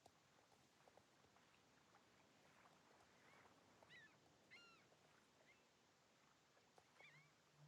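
Near silence, with a few faint, short, high chirps like bird calls, mostly in the middle and again near the end, and scattered soft clicks.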